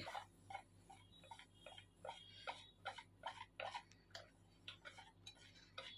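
Wire whisk beating thick cake batter in a bowl: faint quick ticks and taps as the wires knock the bowl, about three or four a second, unevenly spaced.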